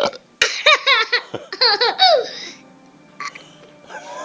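Young boy laughing: a run of quick, high-pitched giggles in the first two and a half seconds, then quieter.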